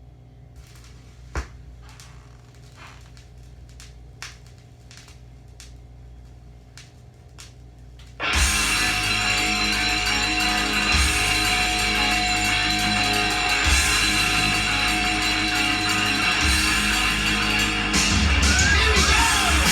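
Vinyl record on a turntable: faint hum with scattered clicks and pops from the groove for about eight seconds, then rock music with guitar starts abruptly and plays loudly.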